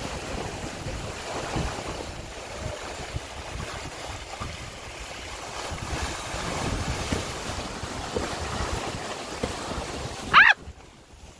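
Wind and water rushing past a sailing trimaran's hulls, with wind buffeting the microphone. A short pitched cry comes near the end, after which the rushing drops away sharply.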